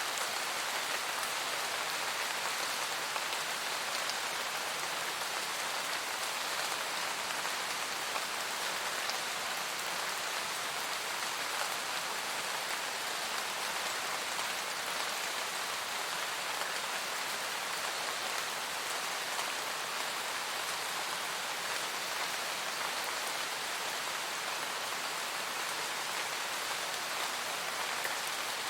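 Steady rain falling in a forest, a dense even hiss of drops on leaves with occasional single drops ticking through.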